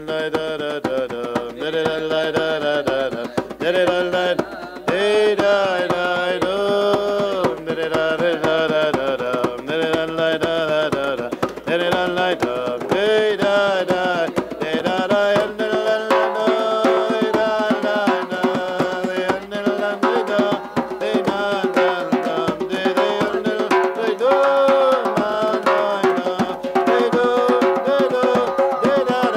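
A man singing a melody while beating a steady rhythm with both hands on a hand drum.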